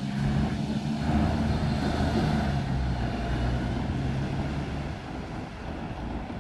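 Double-decker diesel bus engine running steadily as the bus crosses the level crossing and moves off, fading near the end.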